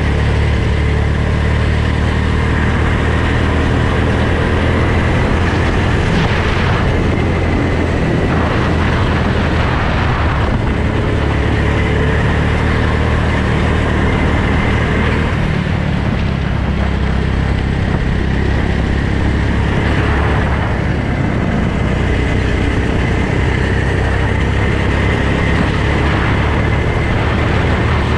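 Go-kart engine running loud and steady under way, heard from a helmet camera.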